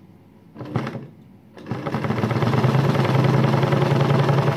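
Janome 802 domestic sewing machine doing free-motion zigzag (satin-stitch) embroidery at a narrow stitch width. After a short burst just over half a second in, it starts running fast and steadily at about two seconds in.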